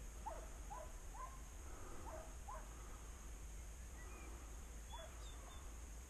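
Faint, distant barking of a boar hound giving tongue, about half a dozen short barks: a quick run of five in the first three seconds, then one more near the end.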